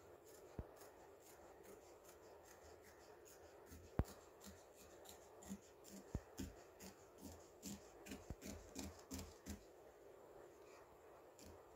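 Scissors cutting through fabric: faint, quick snips, several a second, starting about four seconds in, with a sharper click at the first one and the cloth rubbing between cuts.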